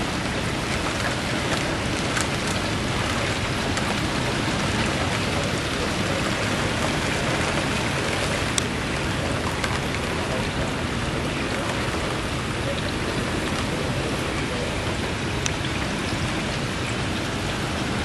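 Hurricane Sandy's wind and rain, heard through an open window screen: a steady rushing hiss of rain with wind noise, and a couple of faint sharp ticks.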